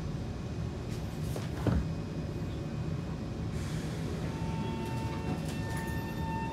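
Inside a Kawasaki C151 MRT carriage standing with its doors shut: a steady low cabin rumble, with a single knock about a second and a half in. About four seconds in, a steady high whine from the train's traction equipment sets in, joined by a higher tone near the end.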